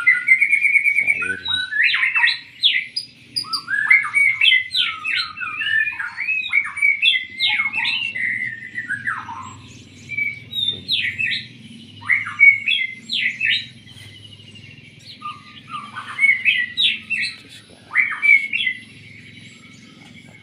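A songbird singing loudly in a varied stream of chirps, rapid trills and downward-sliding whistles, coming in runs separated by short pauses.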